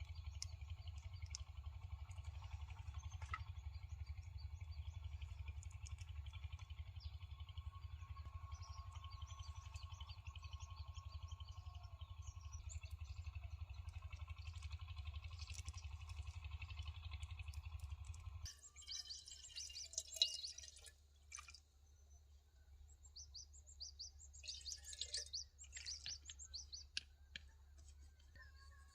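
Small birds chirping and calling over a steady low rumble. About two-thirds of the way through, the rumble and most of the birdsong drop away abruptly, leaving scattered short, crisp crackles and chirps.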